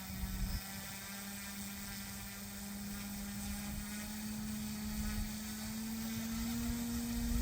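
Goosky S1 RC helicopter's electric motor and rotor whining steadily, its pitch rising slowly and getting gradually louder.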